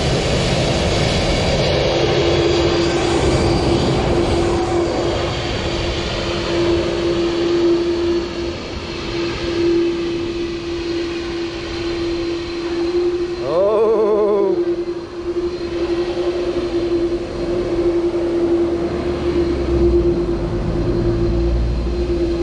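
Airliner jet engines running steadily before takeoff thrust, a constant whine over a broad rushing noise. A short voice-like call rises and falls about fourteen seconds in.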